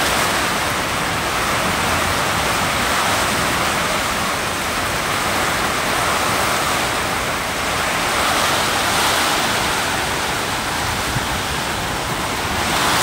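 Heavy rain pouring onto corrugated tin roofs in a strong windstorm: a loud, steady rushing hiss that swells and eases a little.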